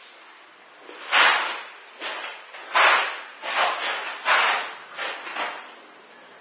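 Notched trowel scraped across the floor in about eight short, quick strokes, spreading parquet adhesive on the subfloor.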